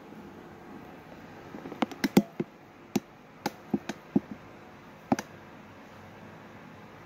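Irregular sharp taps and knocks of a ceramic plate as hands press and turn a raw chicken breast in flour, about a dozen over three seconds, the loudest about two seconds in.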